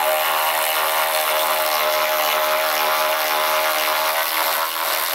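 Milwaukee M12 3/8-inch cordless ratchet running steadily under load as it backs a lag screw out of wood, its motor and gearing giving a steady whine. The sound drops near the end as the screw comes free.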